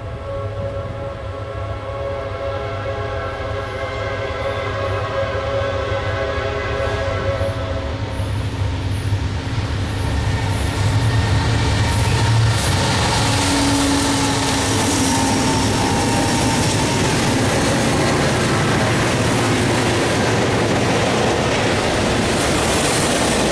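Diesel freight locomotive's air horn sounding one long blast as the train approaches, dying away about eight seconds in. The locomotive's engine passes loudest around eleven seconds in, and then the freight cars roll by with a steady rumble and clatter of wheels on rail.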